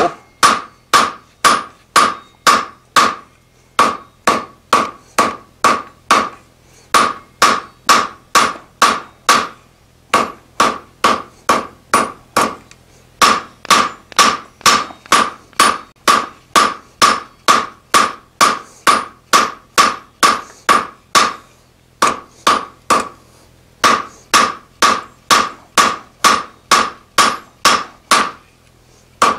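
Hand hammer striking a hot mild-steel bar over the horn of an anvil, about two blows a second with a few brief pauses, each blow ringing. The bar is being drawn out thinner.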